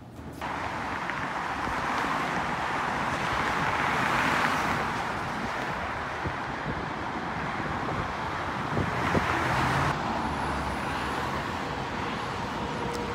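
Street traffic: a steady wash of road and tyre noise from cars, swelling twice as vehicles pass, once around four seconds in and again around nine seconds in.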